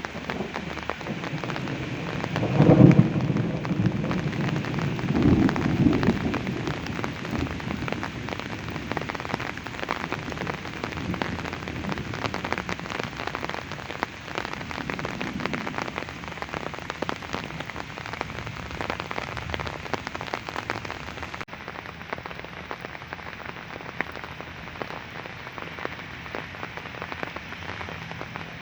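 Summer thunderstorm rain falling steadily on surfaces, with many close, sharp drop hits. Two low rolls of thunder swell up about three seconds in and again near six seconds, the first the loudest moment.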